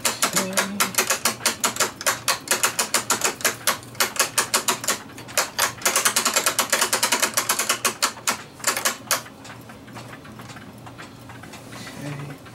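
Clock mainspring winder's ratchet clicking rapidly as its hand crank winds a mainspring tight. The clicks come faster around the middle and stop about nine seconds in.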